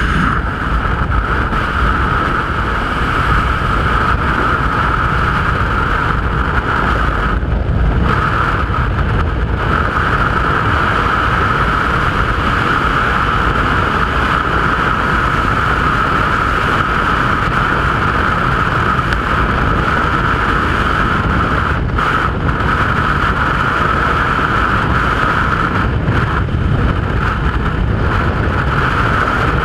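Skydiving freefall wind rushing over a helmet-mounted camera's microphone: loud and steady. It swells at the start as the jumpers leave the aircraft and dips briefly a few times.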